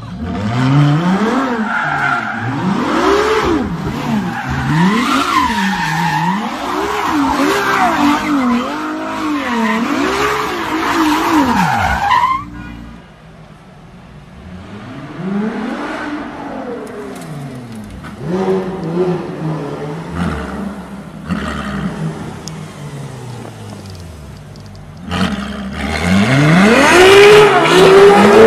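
Ferrari LaFerrari's V12 engine revved up and down over and over during a burnout, with the rear tyres spinning and squealing, for about twelve seconds. After a sudden cut it is quieter, with a few short revs, then near the end a LaFerrari accelerates hard, its engine pitch climbing steadily.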